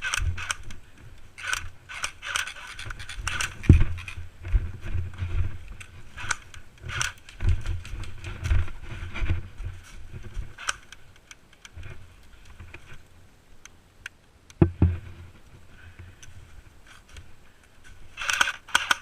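Footsteps and jangling, rattling gear of an airsoft player on the move, with irregular low thuds and scraping.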